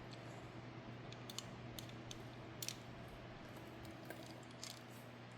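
A few faint, light clicks and taps from a small die-cast toy car being handled and turned over, over a steady low hum.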